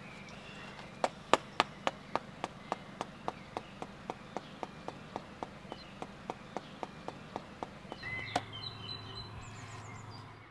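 A steady run of sharp ticks, about four a second, starting about a second in, loudest at first and fading, then one louder tick near the end. Birds chirp faintly behind.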